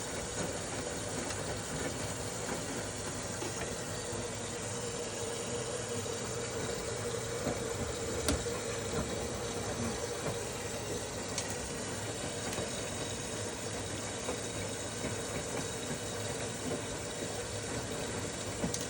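Washing machine filling with water: a steady rush of water running into the machine, with a couple of faint clicks.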